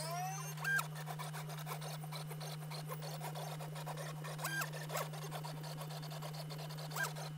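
NEMA 17 stepper motors of a DIY pen plotter, driven by A4988 drivers, running through many short drawing moves: a steady low hum under rapid ticking chatter. Three brief whines rise and fall in pitch, about a second in, about halfway through and near the end, as the carriage makes quicker moves.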